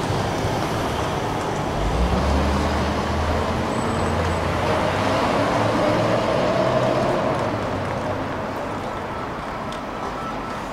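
Tram running through city traffic: steady rumble of wheels and running gear with a low hum coming in about two seconds in and a whine rising in pitch around the middle, as with a tram pulling away. The noise eases off over the last few seconds.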